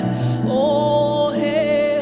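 Slow, soft worship music: a sustained melodic voice or instrument line over held chords and a steady bass.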